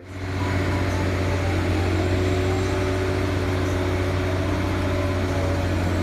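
Diesel engine of a large telescopic crawler crane running steadily, with a strong low hum.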